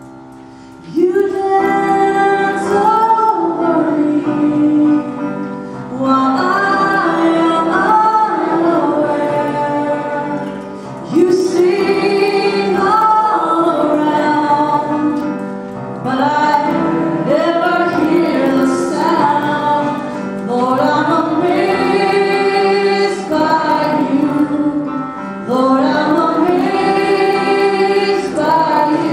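A woman singing into a microphone, joined by other voices, in sung phrases a few seconds long. The singing starts about a second in, after a short lull.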